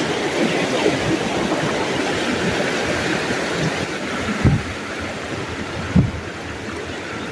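Fast-flowing river water rushing steadily, with two short low thumps about four and a half and six seconds in.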